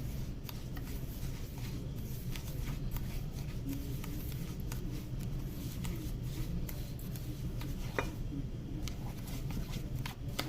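Spice seasoning and oil being mixed into a paste in a bowl: faint scraping with scattered light clicks, a sharper click about eight seconds in, over a steady low hum.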